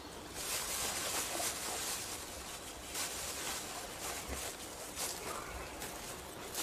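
Forest ambience: a steady rustling hiss of leaves and undergrowth, broken by a few brief, louder rustles or crackles at irregular moments.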